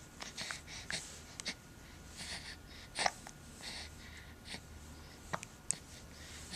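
A baby hiccuping: several short, sharp catches of breath, the loudest about three seconds in, with soft breathing between.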